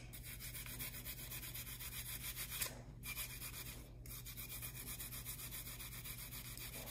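Onion rubbed back and forth on a flat metal hand grater, a faint, steady rasping scrape with two short breaks around the middle.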